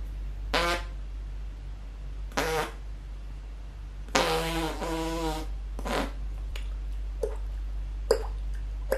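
Fake farts made by blowing raspberries against the forearm: four buzzy blasts, the third stretched to over a second. In the last third comes a series of short mouth pops imitating water drops, about one every 0.8 seconds.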